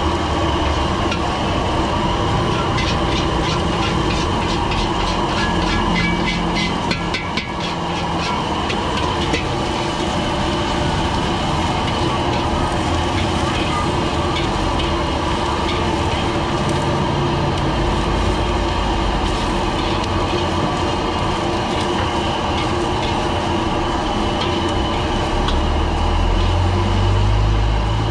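Stir-frying in a wok over a gas burner: a metal spatula scraping and clanking rapidly against the wok in the first several seconds, with food sizzling and the burner running steadily underneath.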